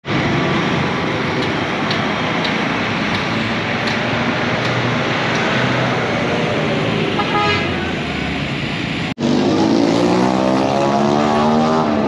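Street traffic: vehicle engines running, with a brief horn toot past the middle. After an abrupt cut about nine seconds in, a nearby engine drones louder with a wavering pitch.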